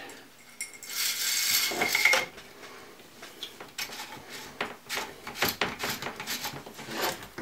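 A coil magazine spring being fed into the steel magazine tube of an 870-pattern pump shotgun, scraping for about a second. Then light metal clicks and knocks as the tube and extension are handled.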